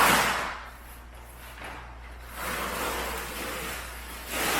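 Peel-and-stick wallpaper being pulled off a painted wall, its adhesive backing coming away with a ripping, rustling noise in several long pulls. It is peeling off cleanly, leaving the wall unsticky.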